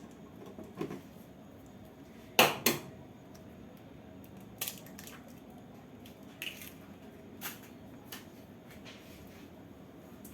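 An egg knocked twice against the edge of a container and cracked open, followed by a few small clicks and taps of kitchenware.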